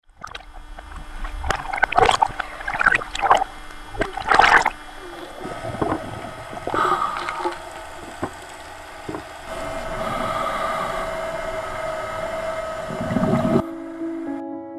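Water splashing and sloshing in loud, irregular bursts around a boat over a steady hum. The splashing thins out after about five seconds. Gentle piano music comes in near the end.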